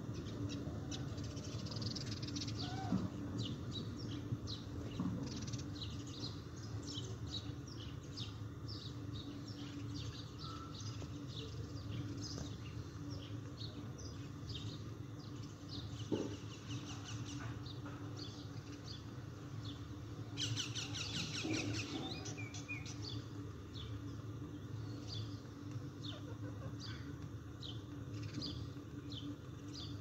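Birds chirping, with many short high calls throughout and a fast run of rapid notes about two-thirds of the way through, over a steady low hum.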